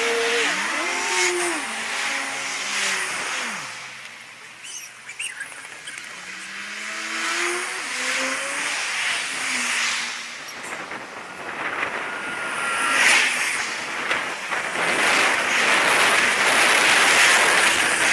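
Passing cars' engines rising and falling in pitch as they accelerate and pull away, over a steady rush of tyre and road noise that grows louder in the second half.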